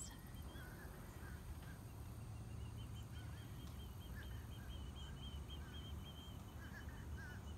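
Faint birds calling outdoors: scattered short chirps, and from about two seconds in a long run of quick, evenly spaced high notes that stops near the end.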